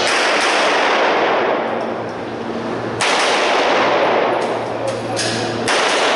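Pistol shots cracking in an indoor range, each report followed by a long, dense echo off the hard walls; two sharp reports stand out, about three seconds in and again near the end.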